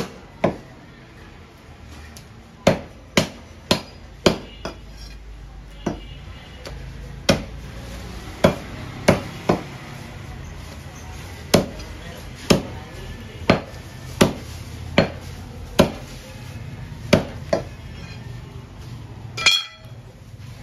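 A heavy cleaver chopping through bone-in beef on a wooden log chopping block: about twenty sharp chops at an uneven pace, often two or three in quick succession. A ringing clatter comes near the end.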